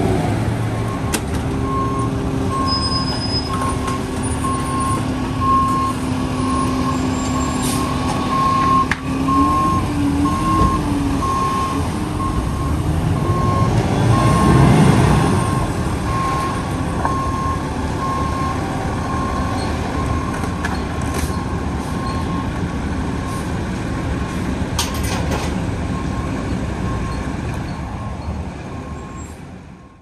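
Concrete mixer truck reversing: its backup alarm beeps evenly about once a second over the steady running of the diesel engine, with a louder rush of noise about halfway through. The sound fades out at the end.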